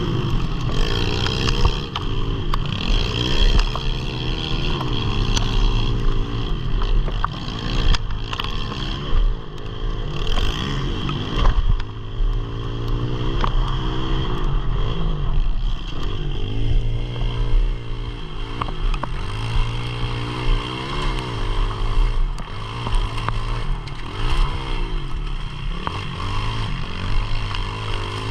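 Onboard sound of a pit bike engine revving hard, its pitch climbing and dropping again and again as the bike is ridden along a dirt trail, with clattering and knocks from the rough ground.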